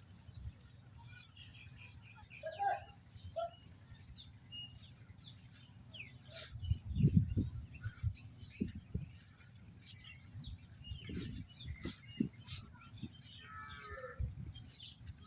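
Cattle lowing several times, deep and low, the loudest call about seven seconds in, with short bird chirps and a steady high-pitched hum behind.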